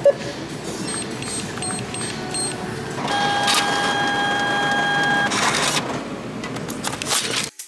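A short beep, then a small machine running with a steady whine for about two seconds over a busy background.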